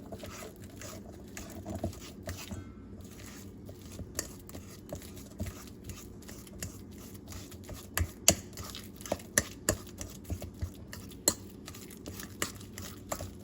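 Fork mashing ripe bananas in a bowl, with irregular light taps and clicks of the fork against the bowl, sharper and more frequent in the second half.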